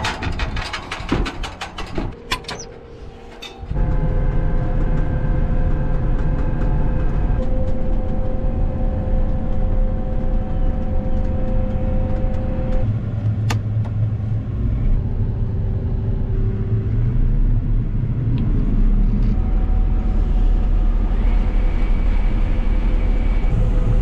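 Footsteps and clanks on the steel steps of a John Deere 9760 STS combine. About four seconds in, they give way to the combine running steadily as it harvests soybeans: a loud low rumble of the diesel engine and threshing machinery, with a few steady whines on top.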